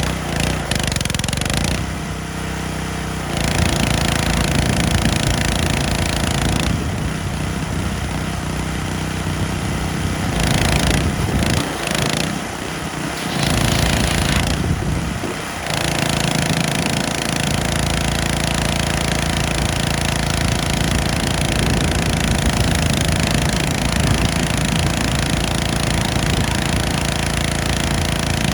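Gas pressure washer running: a small engine drones steadily under the hiss of the high-pressure water spray. The hiss cuts out briefly three times, near the start, around a quarter of the way in and about halfway.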